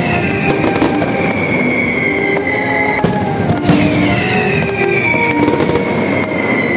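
Mascletà barrage: a dense, unbroken rattle of firecrackers, with several shrill whistles that slide down in pitch over a second or two, and a few sharper bangs standing out.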